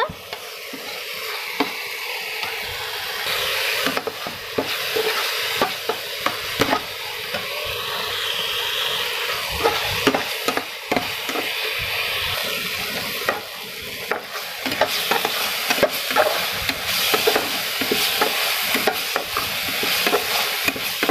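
Onion, garlic and ginger paste sizzling in hot oil in a metal kadai while a steel spatula stirs it, with frequent clicks and scrapes of the spatula against the pan.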